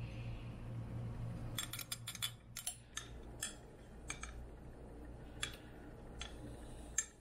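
Light clicks and clinks of a metal spoon and a glass measuring cup against plastic egg cooker cups as whisked egg mixture is poured in: a quick run of clicks about two seconds in, then a few single taps. A steady low hum runs underneath.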